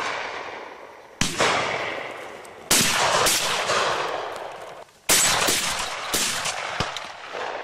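Shotgun shots at pigeons, with three loud reports about a second in, near three seconds and about five seconds in, each trailing off in a long echo. Fainter shots crack in between.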